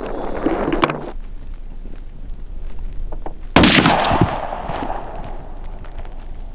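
A single shot from an Orsis 120 bolt-action rifle about three and a half seconds in: a sharp crack with a ringing tail that dies away over a second or so.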